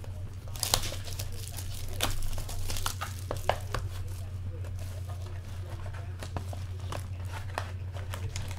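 Plastic wrapping crinkling and tearing in quick, irregular crackles as a box of trading cards is unwrapped and its foil packs are handled, over a steady low hum.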